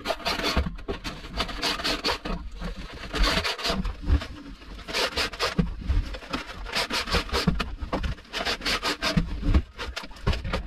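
Fish tape being pulled up through a boat's rigging run into the console, rubbing and scraping in a string of short strokes, quicker and more regular in the second half.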